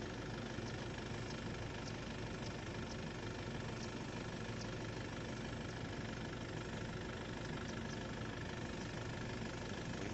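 Steady, even engine hum running without change, with faint short high ticks scattered through it.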